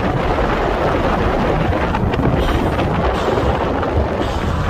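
Steady rumbling wind and road noise of a moving car, with wind buffeting the microphone.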